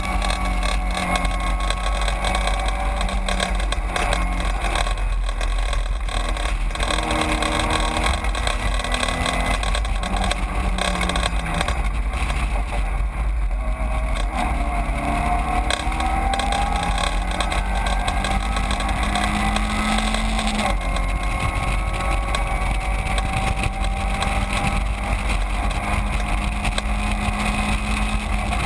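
Caterham 7 race car's engine at racing speed, heard from on board: its note climbs through each gear and drops at the gearchanges, several times, over constant wind and road noise.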